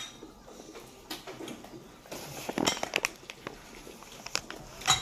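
Eating at a dinner table: scattered light clicks and knocks of utensils against bowls and plates, with crunching and chewing.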